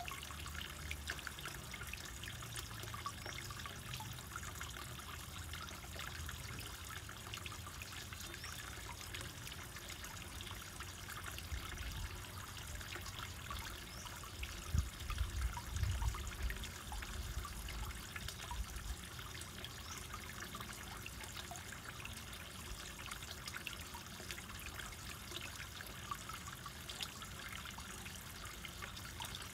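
Water trickling steadily into a koi pond, with a fine continuous splashing crackle. A brief low rumble about halfway through.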